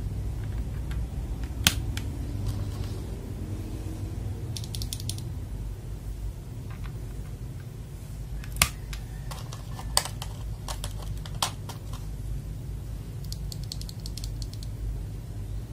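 Plastic clicks and snaps of AKKO Silver mechanical keyboard switches being handled and pressed into a hot-swap keyboard, with a few sharper single snaps and two short runs of fast light clicking, over a steady low hum.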